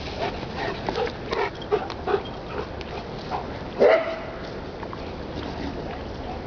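A dog yipping in a quick run of short, high yelps, then giving one louder bark about four seconds in.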